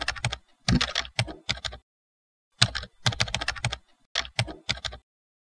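Computer keyboard typing: quick runs of key clicks, a short pause of under a second about two seconds in, then more clicks stopping about five seconds in.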